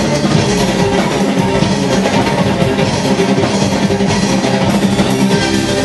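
Rock music in a symphonic arrangement, strings with a drum kit, playing continuously at a steady level.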